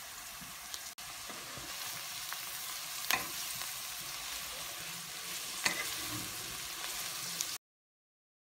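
Grated beetroot, carrot and onion frying in oil in a pan, sizzling steadily while being stirred with a wooden spatula, with two sharp clicks about three and five and a half seconds in. The sound cuts off suddenly near the end.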